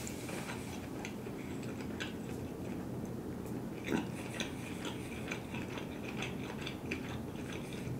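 A person chewing a mouthful of food close to the microphone, with soft wet mouth clicks and smacks scattered throughout and one slightly louder click about four seconds in.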